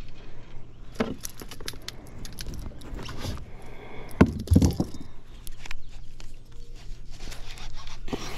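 Knocks, clicks and rattles of gear being handled aboard a kayak, with a heavy low thump about four and a half seconds in.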